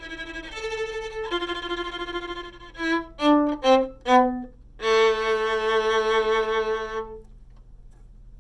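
Violin playing a short closing phrase: a few held notes, then four short notes stepping downward about three seconds in, then one long held note that stops about seven seconds in.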